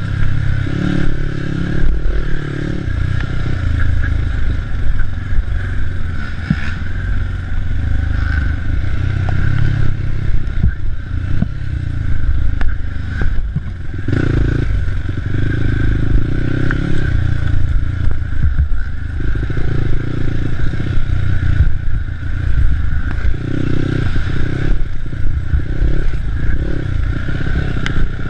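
Race ATV engine revving up and down as it is ridden hard off-road, with constant rattling, knocking and scraping from the machine and the rough ground.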